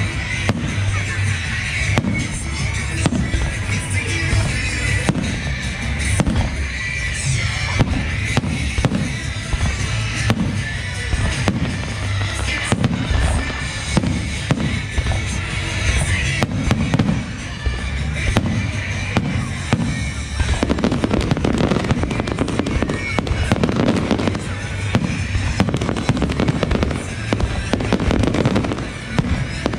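Fireworks barrage: a dense, continuous run of aerial shell bangs and crackling, with music playing behind it.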